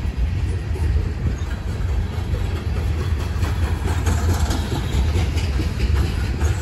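Loaded coal hopper cars of a long freight train rolling past: a steady heavy rumble of steel wheels on rail with light clicks, and wind buffeting the microphone.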